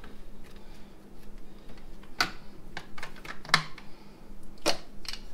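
Sharp plastic clicks and knocks from a food processor: onion pieces dropped into the plastic bowl and the lid fitted and locked in place. The clicks start about two seconds in and come irregularly, several close together, then a few more near the end.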